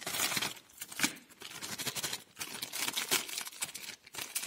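Clear plastic zip-lock bags crinkling and rustling as they are handled, with irregular short clicks.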